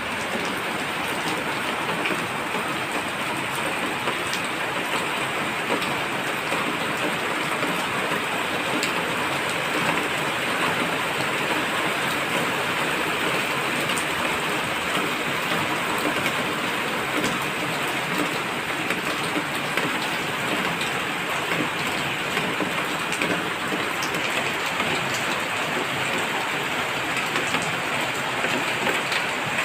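Steady rain falling: an even, continuous hiss with scattered sharper ticks of drops striking.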